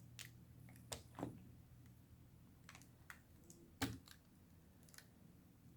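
Faint, scattered small clicks and taps of hands working parts inside an opened MacBook Pro while seating a new battery, with one sharper knock about four seconds in.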